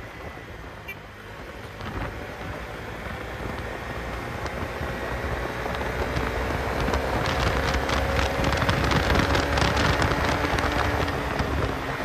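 Bajaj Dominar 250 single-cylinder motorcycle riding on the road with wind rushing over the microphone. Its engine note climbs slowly and the whole sound grows steadily louder as it picks up speed. Wind buffeting grows rougher in the second half.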